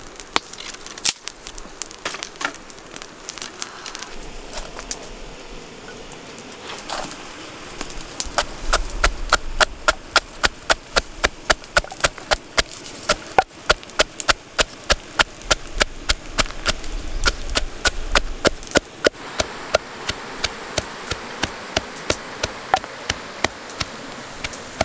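Wooden pestle pounding in a wooden mortar with a steady rhythm of sharp knocks, about two or three a second, starting about a third of the way in and running on to the end.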